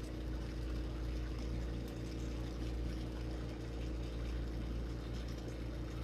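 Steady hiss and rush of a lampworking bench torch flame while a glass tube is heated in it, over a constant low hum.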